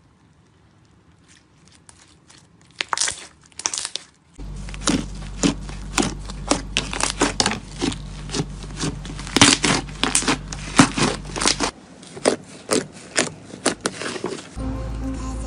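Slime being handled: faint sticky crackles at first, then two louder crackly pops around three seconds in. From about four and a half seconds thick, fluffy slime is pressed and squished by hand, giving a quick, irregular run of sharp pops and crackles from trapped air, over a steady low hum.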